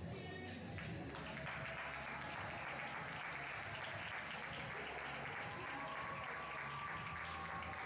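Audience applauding. The clapping sets in about a second and a half in and holds steady, with music continuing underneath.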